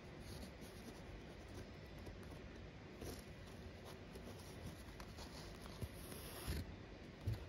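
Faint scratching and rustling of embroidery thread being drawn through stamped cross-stitch canvas as the cloth is handled, with a soft bump near the end.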